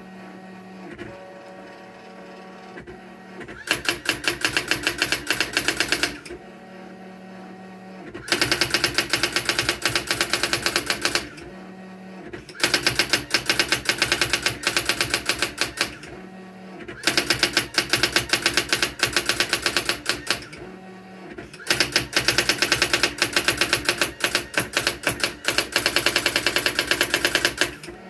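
Brother AX-400 electronic daisy-wheel typewriter printing its built-in self-test text: five runs of rapid, even printwheel strikes a few seconds each, the first starting about four seconds in, with a quieter steady motor hum in the pauses between runs.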